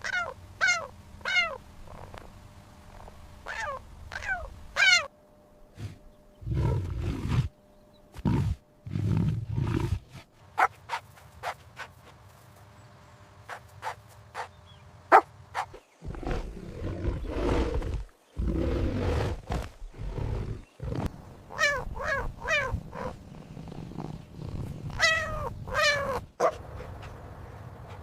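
Big cat growling and roaring in several low bursts, with groups of three or four high calls that fall sharply in pitch between them.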